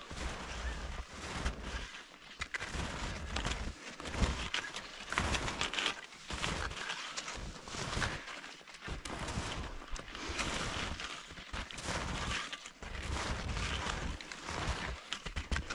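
Footsteps crunching through deep snow in a steady walking rhythm, about one step a second.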